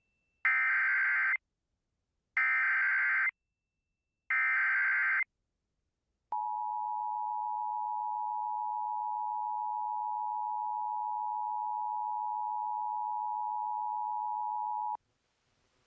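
Emergency Alert System SAME header: three identical bursts of digital data tones, each about a second long and two seconds apart. About a second later comes the steady two-tone EAS attention signal (853 and 960 Hz), held for about eight and a half seconds before it cuts off. Together they mark the start of a new emergency alert.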